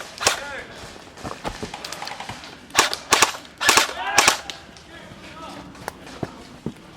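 Airsoft guns firing single shots: sharp cracks, the loudest four in quick succession about three to four seconds in, with fainter shots between.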